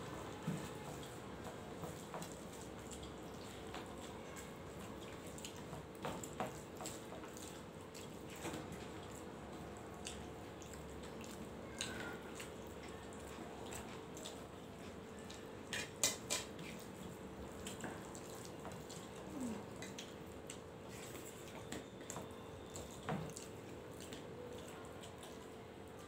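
Two people eating rice and curry by hand from steel plates: scattered small clicks, ticks and clinks of fingers and food against the steel, with a sharper cluster about 16 seconds in, over a steady faint hum.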